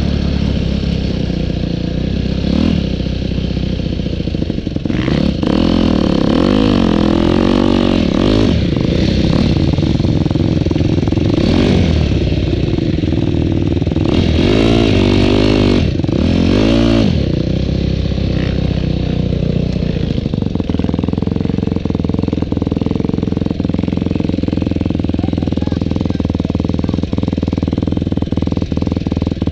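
Dirt bike engine heard from on board while riding off-road, revving up and down over and over, then running more steadily for the last third with light rattles.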